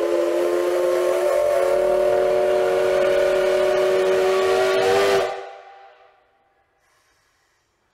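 Whistle of the C11 325 steam tank locomotive: one long, steady blast of several tones at once, lasting about five seconds, then cut off, with a short echo dying away.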